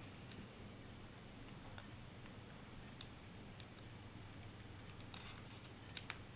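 Faint, scattered light clicks and taps of small plastic Kinder Surprise toy pieces being handled and fitted together, with a quick cluster of clicks near the end.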